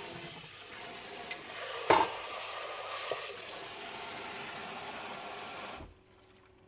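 Kitchen tap running steadily into a sink while something is rinsed, with a few clinks and one louder knock about two seconds in. The water is shut off abruptly near the end.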